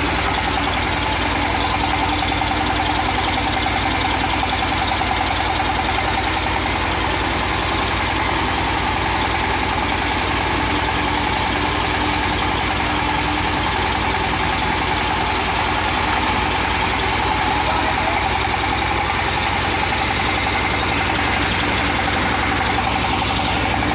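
Sawmill engine running steadily at one even speed.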